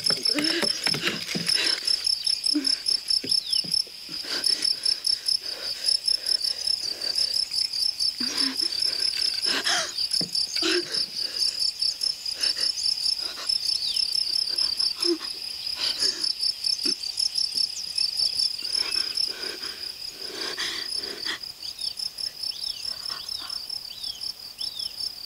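Crickets chirping in a steady, fast pulsing trill, with occasional brief knocks and rustles over it.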